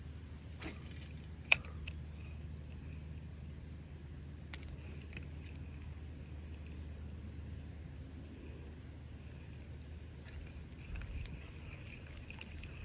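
Insects outdoors keep up a steady, high-pitched chorus without a break. There is one sharp click about a second and a half in, and a faint low rumble runs underneath.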